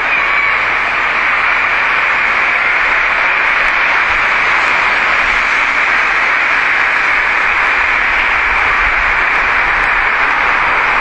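Steady hiss of noise from a recording, even and unchanging, with no clear words in it.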